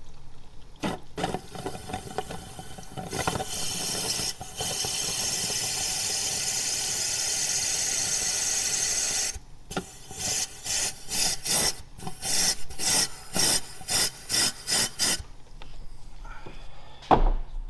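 Compressed-air blowgun blowing through a disconnected heater-core hose to force the coolant out of the heater core: a long steady hiss of air and spraying coolant, then a run of short blasts about two a second as the trigger is pulsed.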